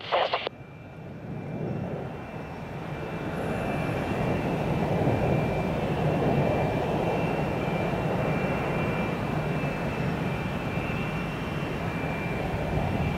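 Jet engines of four Blue Angels F/A-18 Hornets flying in diamond formation: a steady jet roar that builds over the first few seconds and then holds.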